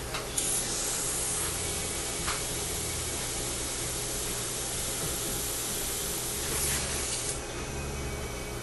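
Dental suction hissing steadily over a faint low hum, with a small click or two; the hiss stops about seven seconds in.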